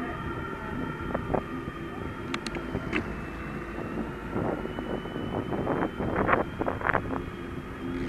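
Bicycle riding on asphalt: a steady rumble and whine from the knobby tyre rolling, with wind on the microphone. Short knocks and rattles from the bike come now and then and bunch together in the second half.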